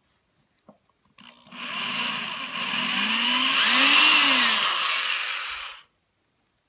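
Small handheld electric drill running for about four seconds as a small bit drills a shallow purchase point into a center-punched pin. The motor's pitch climbs and then falls before it stops suddenly.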